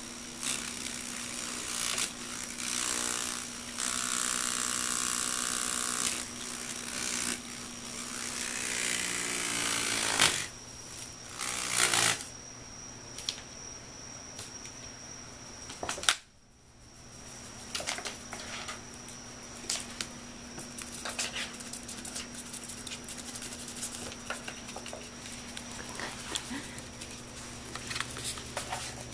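A small electric circulator fan running, with a bird feather held into its spinning blades: the feather makes a loud, buzzing flutter for the first ten seconds or so. After that the fan's steady hum continues, with scattered light clicks and scrapes.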